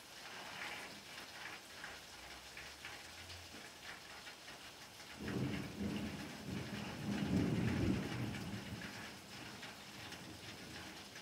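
Steady rain falling on flat rooftops, with a low rumble of thunder rolling in about five seconds in, loudest a couple of seconds later, then fading.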